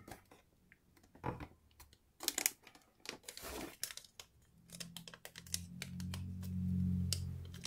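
A sheet of origami paper being handled and folded: scattered crinkles and crisp creasing rustles. In the second half a low steady hum rises and becomes the loudest sound.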